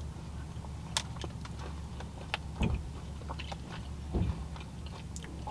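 Quiet chewing and small mouth clicks of people eating frosted sugar cookies with sprinkles, over a steady low rumble inside a car.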